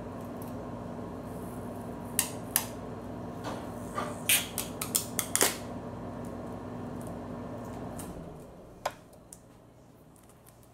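Sticky tape being handled and peeled, a cluster of sharp crackles and snaps in the middle. Under it a steady low hum that dies away about eight seconds in.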